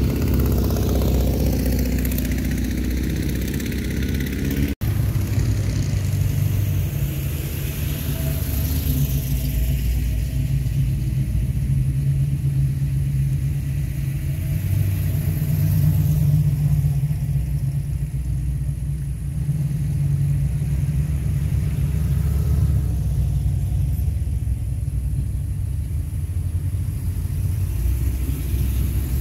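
Classic cars driving past in a procession, their engines making a steady low rumble. In the first few seconds one car's engine note falls in pitch as it goes by. The sound cuts out for a moment about five seconds in.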